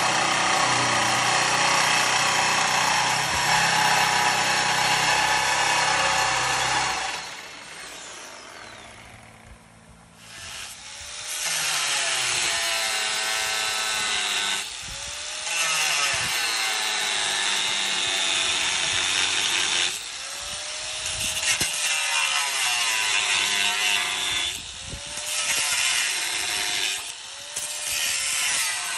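A reciprocating saw cutting through the steel front frame of a Crown Victoria chassis for about seven seconds. After a quieter gap, an angle grinder cuts and scores the steel from about eleven seconds on, its whine rising and falling under load and briefly dropping off a few times.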